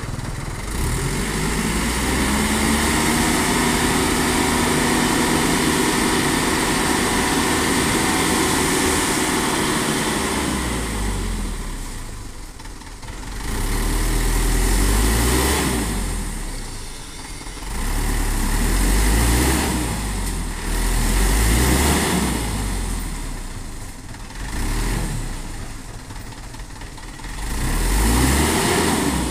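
Dump truck's engine held at high revs to drive the hydraulic hoist raising the loaded tipper bed, steady for about the first ten seconds, then revved up and let fall back again and again as the bed tips to dump the soil.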